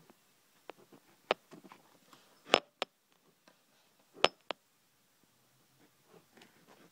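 A few sharp, short clicks and taps over quiet room tone, loudest about two and a half seconds in and again about four seconds in.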